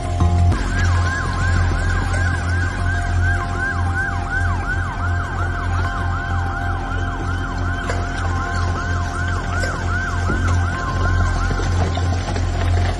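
Emergency vehicle siren in a fast yelp, sweeping up and down about three to four times a second, starting about half a second in and stopping shortly before the end. Background music plays beneath it.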